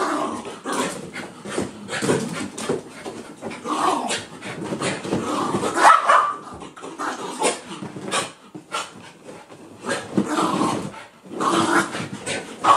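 Two small Maltese-poodle mix dogs play-fighting, growling amid many quick scuffling sounds of paws on the furniture.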